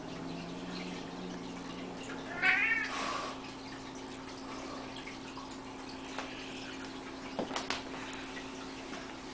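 A tuxedo cat gives one short, high, wavering squeak of a meow about two and a half seconds in. A few quick faint clicks follow later on.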